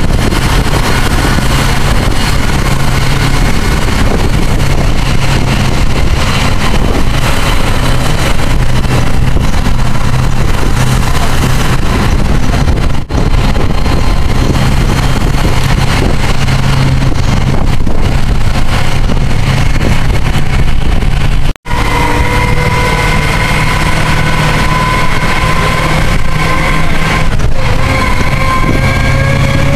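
Bus engine and road noise heard from inside the bus as it drives up hilly roads. The sound cuts out briefly twice. After the second break, the engine note rises slowly and steadily, as if it is pulling hard up a grade.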